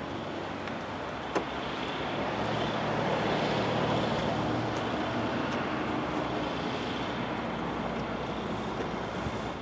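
A motor vehicle engine running close by, its noise swelling to a peak about three to four seconds in and easing off, with one sharp click about a second and a half in.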